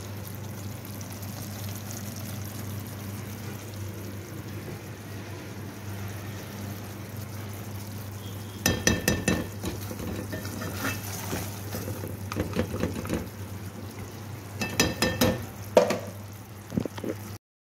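Metal utensil clinking and scraping against an aluminium cooking pot in two short bursts, about nine seconds in and again near fifteen seconds, the strikes ringing briefly. Underneath, a steady low hum.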